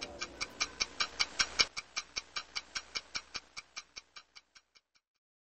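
Steady clock-like ticking, about five even ticks a second, fading away and stopping about five seconds in.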